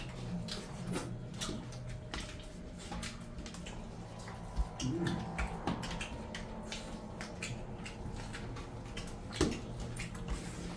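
Eating by hand: rice and curry squished and scooped against steel plates, with chewing and wet mouth clicks, many small sharp sounds in quick succession.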